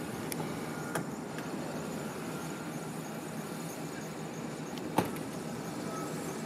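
Steady hum of idling vehicles, with a small click about a second in and a single sharp slam about five seconds in as the driver's door of a Ford cube van is shut.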